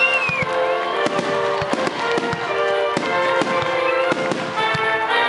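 Fireworks shells bursting in a rapid run of sharp bangs and crackles, over music playing along with the display. A high whistle rises and falls right at the start.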